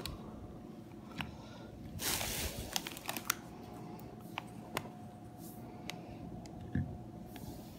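Thin plastic produce bags and clamshell packaging crinkling as they are handled, with scattered light clicks and a longer rustle about two seconds in.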